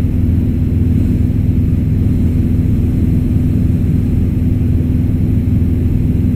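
A light airplane's engine and propeller running steadily, heard inside the cabin as a constant low drone with a steady hum.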